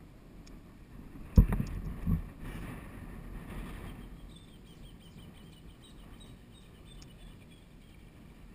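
A sharp knock about a second and a half in, followed by a few softer thumps and a short rustle, then faint, rapid high ticking.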